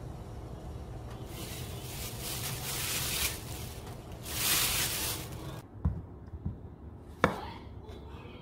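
A pot of broth on an electric hob hissing in two stretches. Then a kitchen knife slicing zucchini on a wooden cutting board: two soft knocks and one sharp chop about seven seconds in, the loudest sound.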